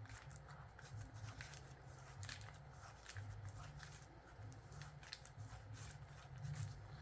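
Faint handling noise: scattered light clicks and rustling of small parts being handled, over a low, uneven rumble.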